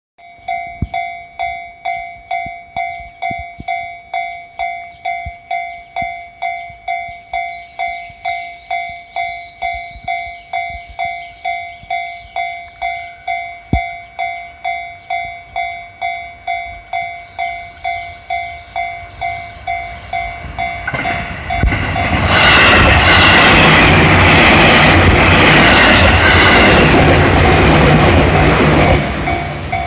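Level-crossing warning bell ringing in an even, repeating rhythm. About 21 seconds in, a JR 211 series electric train passes close by, the loudest part, with its wheels clacking over the rail joints. It fades just before the end while the bell keeps ringing.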